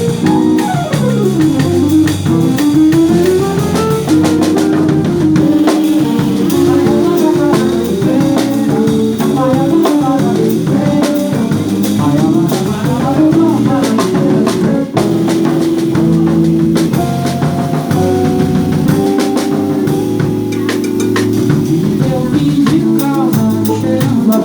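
Instrumental break in a song, with no singing: a drum kit keeps the beat under a melody line that slides up and down between notes.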